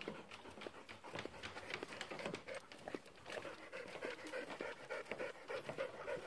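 A dog panting, the breaths coming in a quick even rhythm that grows steadier about halfway through, with footsteps tapping on the wooden dock boards.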